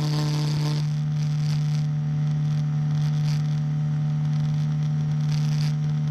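Small piston engine of a powered hang glider running steadily in flight, a constant low drone with rushing air over it. Some of the higher overtones drop away about a second in.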